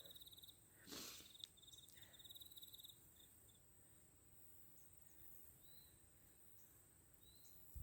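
Near silence with faint insect trilling: rapid pulsed high chirps through the first few seconds, then only a couple of short high chirps.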